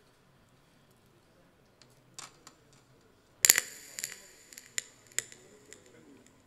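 Podium microphones being handled and adjusted on their stands. A loud rustling knock comes about halfway through, then hiss that fades, with several sharp clicks over the next couple of seconds.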